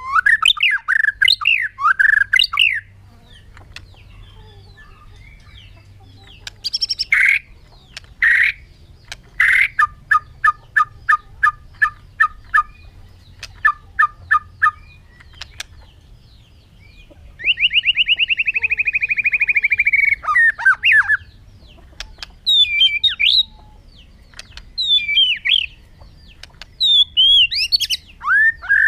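White-rumped shama (murai batu) singing in separate phrases with pauses between them: varied whistled notes, a run of short repeated notes in the middle and a long buzzy trill about two-thirds of the way through.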